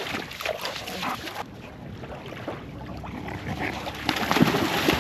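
Dogs playing in shallow water at the shore, with splashing, then a dog barking a few times in short calls near the end.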